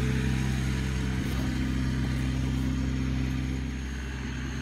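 Pressure washer's engine running steadily, a constant even hum with no water spraying.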